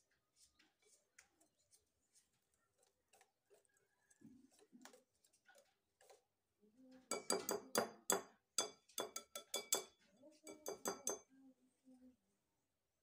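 Wire whisk beating pancake batter in a glass bowl, the wires clinking against the glass. Faint scattered clicks at first, then a fast run of strokes, about four or five a second, from about seven seconds in to about eleven.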